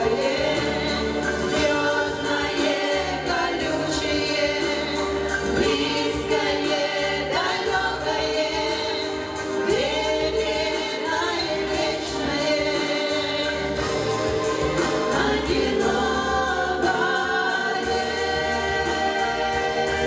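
A female vocal quartet singing in harmony, holding long notes, over an instrumental accompaniment.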